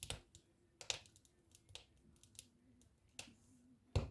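Wood fire in a fireplace crackling, with irregular sharp pops and ticks, the loudest just before the end.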